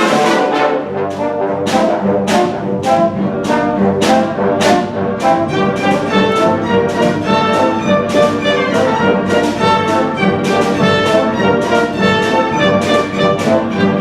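Symphony orchestra playing a brass-led passage, with sharp accented attacks on a steady beat about twice a second; a low bass part comes in about a second in.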